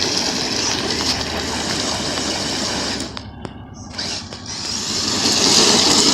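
Kyosho Mad Crusher VE electric RC monster truck running, its motor and drivetrain making a steady whirr. It eases off about three seconds in, then picks up again louder.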